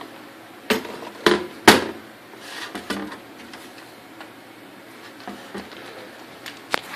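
Handling knocks: three sharp knocks on something hard in quick succession, the third the loudest, then a softer one and a few light clicks.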